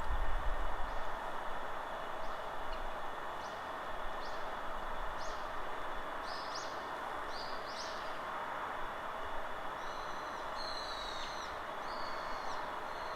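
Small forest birds calling over a steady wash of wind: a run of short, rising chirps about once a second, then longer down-curving calls near the end. A low wind rumble buffets the microphone in the first second.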